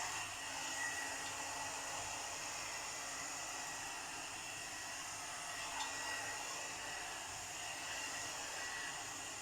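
Premio 3-in-1 blower brush (hot air styler) running on its middle fan setting: a steady rush of air with a faint high whine, not very noisy. There is a small tick about six seconds in.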